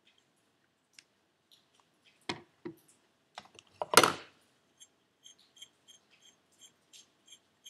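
Light clicks and knocks from handling a turbo compressor wheel and its shaft nut by hand, with one louder clack about four seconds in. After it comes a run of soft, evenly spaced ticks, about three a second, while the nut is turned with the fingers.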